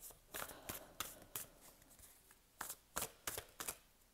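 Tarot cards being handled and laid out by hand: a string of soft flicks and taps, one cluster in the first second and another about three seconds in.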